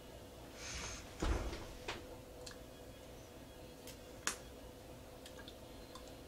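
Small handling sounds of a metal spoon as frosting is tasted from it: a dull knock about a second in, then a few sharp little clicks, over a faint steady hum.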